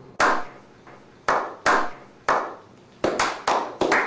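Hand clapping in a slow clap: a few single claps about a second apart, then quicker, closer claps as more people join about three seconds in.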